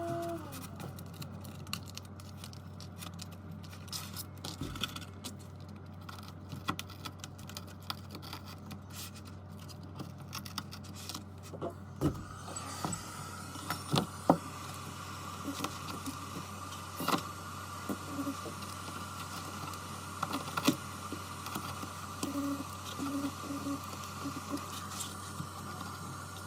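Steady electrical machine hum with scattered light clicks and taps of small tools on a workbench; a second, higher steady hum comes in about halfway through.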